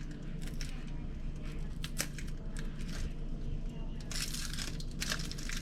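Dry onion skin being peeled and handled: irregular papery crinkling and tearing with small clicks, busiest near the end.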